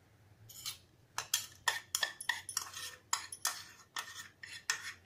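Steel spoon scraping and clinking ground spice mix out of a small bowl into a bowl of chopped green chillies: a quick run of short scrapes, about three a second, starting about half a second in.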